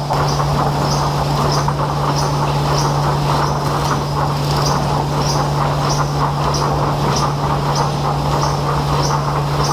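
Wood-processing machinery running steadily, with a constant hum and a short high squeak repeating evenly, about three every two seconds.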